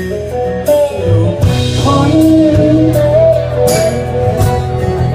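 Live band music: guitar, bass and drums, with cymbal crashes and held melodic notes.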